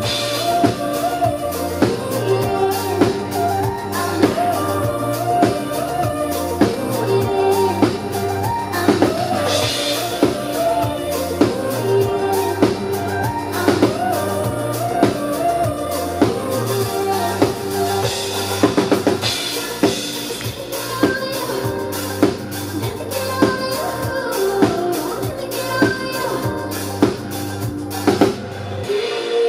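Live pop band music: a drum kit keeps a steady beat with bass drum and snare under keyboards and bass, and a woman's voice sings over it in places. The music stops suddenly at the very end.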